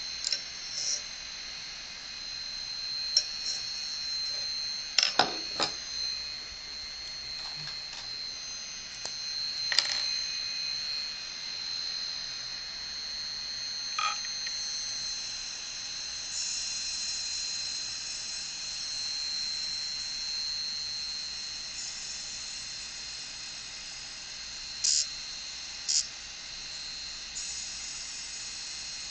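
Open hard drive's spindle motor spinning the platter with a steady high whine. Scattered short sharp clicks and a scratchy hiss are heard as a pen tip is pressed against the spinning platter.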